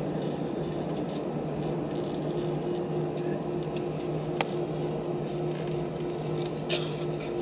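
Airbus A320 cabin noise from a window seat over the wing: the engines at idle while the jet taxis just before takeoff, a steady drone with a steady higher hum above it. A few light clicks and rattles in the cabin, one about four and a half seconds in and another near the end.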